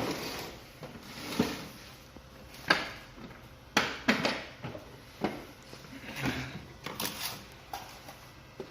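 A box being opened and its packaging handled: irregular clicks, knocks and rustles, about eight distinct knocks.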